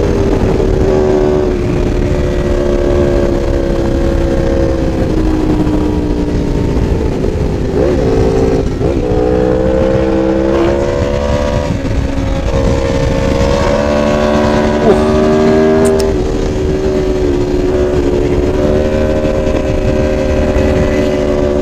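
Big sport motorcycle's engine running at high cruising revs, its pitch sinking slowly and then rising again several times as the throttle is eased and reopened, with wind rushing over the bike-mounted microphone.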